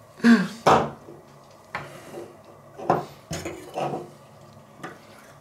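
Handling noises of a rolled baking-paper cone being squeezed to press the last sausage meat into the Weißwurst casing: crinkling paper with a few knocks and clinks on the wooden table, coming in short separate bursts.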